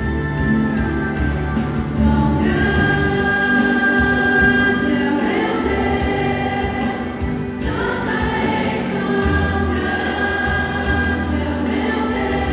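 Youth choir singing a gospel hymn in unison with instrumental accompaniment, long held notes changing phrase every few seconds.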